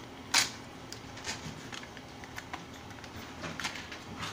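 Thin plastic membrane keypad and its adhesive backing crackling as they are handled and peeled apart by hand: one sharp crackle about half a second in, then fainter crackles and clicks.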